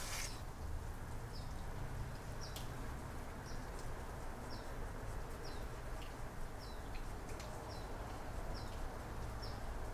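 A small bird chirping over and over outside, each chirp short, high and slightly falling, repeated irregularly every half second to a second over a steady background hiss.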